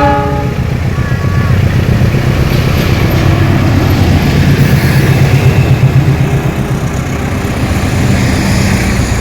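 GE diesel-electric locomotive engine running hard as the train accelerates, a heavy, rapidly pulsing low throb that swells to its loudest midway and then eases slightly.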